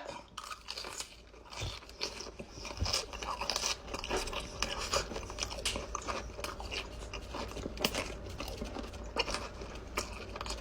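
A person chewing a mouthful of jalapeño Cheetos and cream chew candy, with many small irregular crunches.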